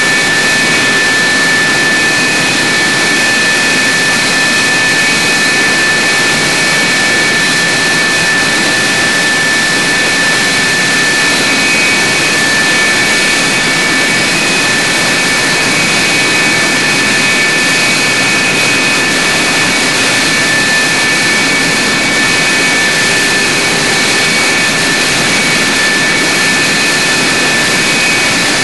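Lockheed F-104 Starfighter's J79 turbojet running steadily: a loud rushing noise with a high, unchanging whine.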